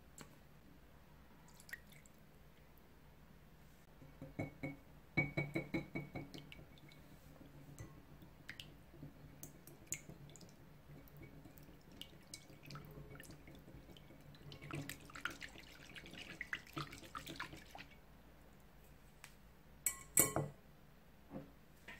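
A wire whisk beating egg yolks, oil and water in a glass bowl: two spells of quick, light clinking and sloshing strokes against the glass. A few sharp clinks near the end.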